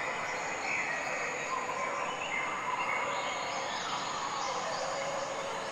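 Bathtub tap running, water pouring steadily into shallow bathwater.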